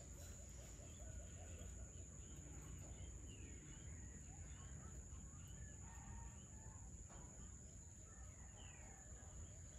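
Faint outdoor dusk ambience. A chicken clucks rapidly at the start, stopping about half a second in. Scattered short bird chirps follow, over a steady high-pitched whine and a low rumble.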